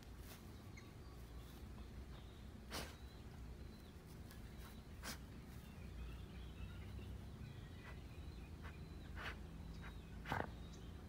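A dog nosing about in dry grass and fallen branches: a few short rustling noises over a low steady rumble, the loudest a little after ten seconds in.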